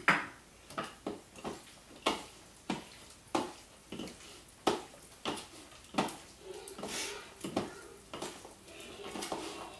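Two wooden spoons knocking and scraping against a bowl as chopped greens are tossed and mixed, a light knock about three times every two seconds.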